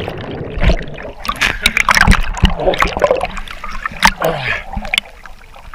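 Sea water splashing and sloshing around a waterproof action camera as it is carried under the surface and back up by a swimmer, with many sharp crackles and gurgles of water against the housing.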